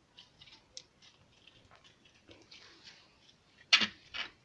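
Slime being squeezed and pressed by hand: a run of small crackling and popping sounds, with two louder pops near the end.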